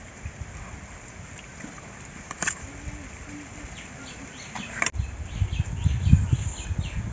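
A steel spoon clinks twice against a stainless steel plate of rice and curry, with faint bird chirping behind. From about five seconds in, uneven low rumbling on the microphone.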